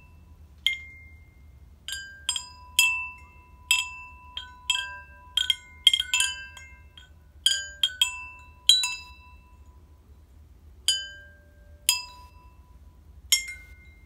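Homemade wind chime of hanging metal tube bells struck by hand with a bent metal rod, about twenty strikes at an uneven pace, each a clear ring that dies away slowly, with a pause of about two seconds after the middle. The bells have just been lengthened to get a better tone.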